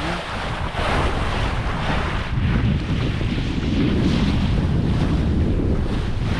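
Wind buffeting the microphone in a heavy low rumble, with water rushing and splashing along a small sailboat's hull in repeated surges.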